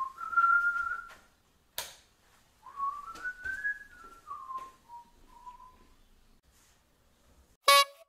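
A man whistling a short tune, a single clear tone that rises and falls in two phrases. A sharp click sounds once in the pause between them.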